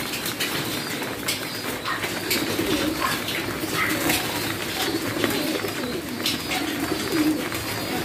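Caged domestic pigeons cooing, several birds overlapping in a continuous low wavering coo, with scattered short clicks.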